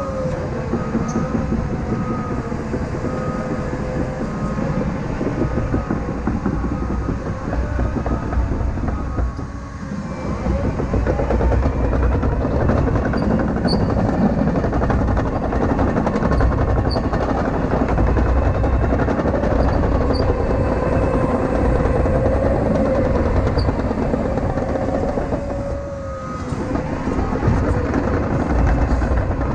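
CAT 953K track loader working, its diesel engine running hard under load with a wavering whine that rises and falls as the machine moves. The engine eases off briefly about ten seconds in and again near the end.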